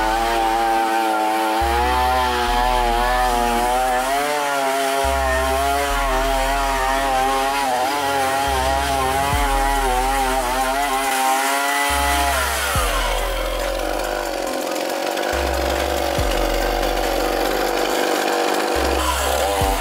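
Chainsaw motor driving a homemade abrasive cleaning attachment, scouring rust off a steel wheelbarrow. Its pitch wavers as the head is pressed against the metal, then drops about two-thirds of the way through, and it runs on at the lower speed.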